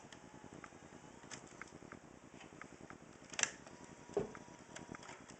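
Light clicks and handling noise from a camcorder being turned over and its controls touched, with two sharper clicks a little past halfway.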